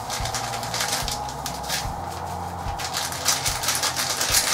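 Paper bran packet crinkling and rustling in short, irregular bursts as it is shaken and tipped to get the last of the bran out.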